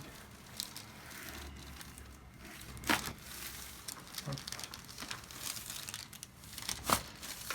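Two sharp neck pops from a chiropractic neck adjustment, one on each side, about four seconds apart. Soft rustling from the patient on the table runs between them.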